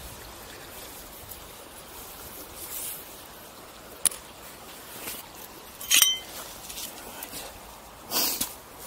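Old glass bottles and shards being handled and set down among stones on sand: a sharp click about four seconds in and a louder glassy clink about six seconds in, then a brief scuff a little after eight seconds. Under it runs a steady hiss of river water.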